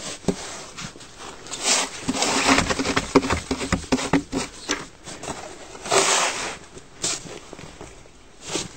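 Snow being shoveled: a shovel scraping and scooping snow in irregular bursts, with the thickest stretch of scraping about two seconds in and further scoops near the end.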